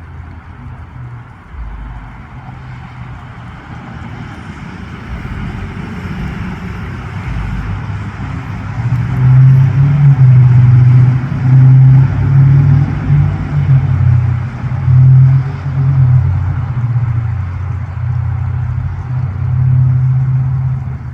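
Rocket launch rumble, a deep low roar that builds over the first few seconds and then pulses in loud swells.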